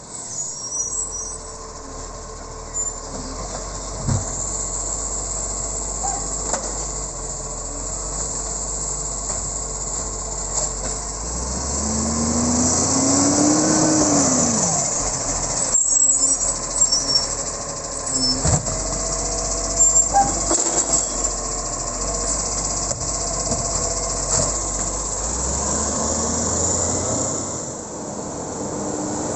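Iveco side-loader garbage truck driving past, its diesel engine running steadily and rising then falling in pitch as it passes close by midway. Thin brake squeals can be heard now and then.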